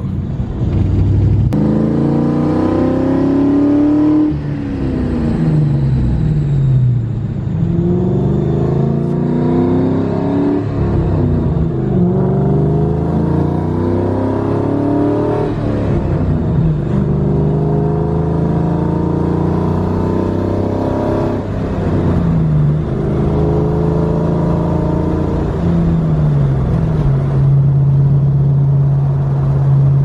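Ford 4.6 modular V8 with a Pypes exhaust, heard from inside the car on a test drive. It rises in pitch under acceleration and drops back several times, then holds a steady cruise near the end. It pulls without breaking up, which the driver takes to mean the misfire is cured by the new spark plugs and ignition coil.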